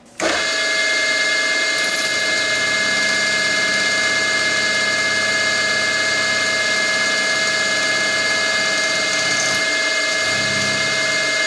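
Benchtop mill-drill running, its spindle turning a twist drill that feeds into a clamped part to drill a tap hole for an M4 thread. A steady whine with several high tones starts a fraction of a second in and holds level.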